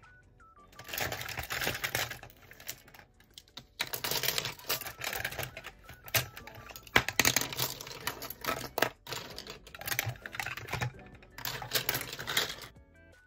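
Handfuls of plastic pens clicking and clattering against each other and the plastic pencil holder as they are pulled out and set down on a desk, in spells of rattling with brief pauses.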